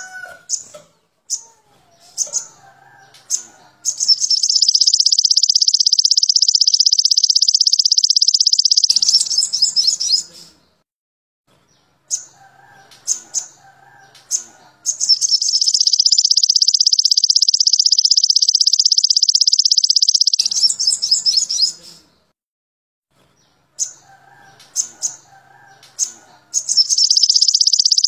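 Olive-backed sunbird (sogon) song: bursts of short sharp chirps, each followed by a very fast, high, continuous trill (the 'trotol' roll) lasting about five seconds. The cycle repeats three times with brief silent gaps, as a looped tutor recording for training cage birds. Fainter, lower chirps sound under the short calls.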